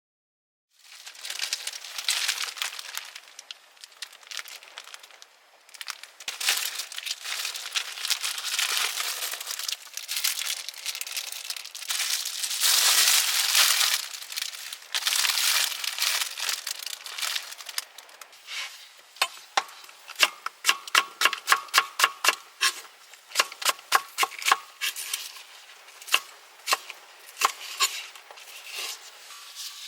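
Crinkling and tearing of packaging while cooking, followed from about two-thirds of the way in by a quick run of sharp clicks and knocks, some with a short ringing tone.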